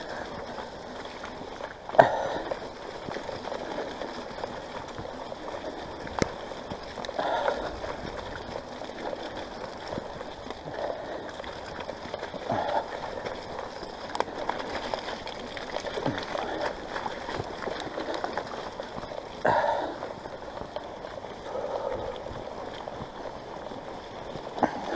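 Mountain bike riding along a flooded trail: tyres running and splashing through water, with a few sharp knocks from the bike.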